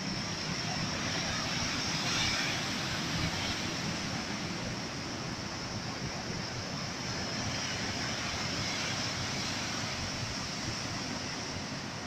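Sea surf breaking on rocks: a steady rushing wash of waves that swells a little about two seconds in.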